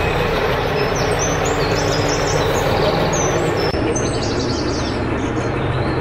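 Truck engine running steadily, with birds chirping over it.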